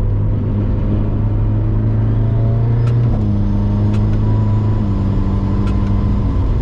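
Car engine heard from inside the cabin, pulling through the gears of a 7-speed dual-clutch gearbox: the engine pitch climbs gently, then steps down at an upshift about three seconds in and again near five seconds. A few sharp clicks sound over it.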